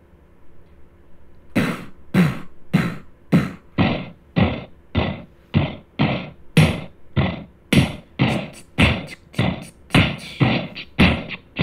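Electronic drum-machine beat starting about a second and a half in: a steady pulse of about two hits a second, each hit dropping quickly in pitch, with quicker extra hits added from about eight seconds in.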